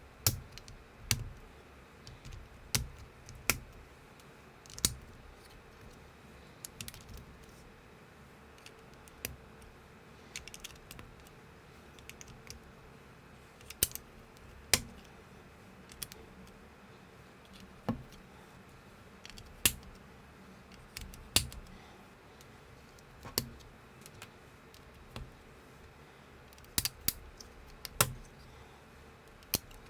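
Plastic building bricks clicking as they are snapped together and set down: separate sharp clicks at irregular intervals a second or two apart, some with a low knock.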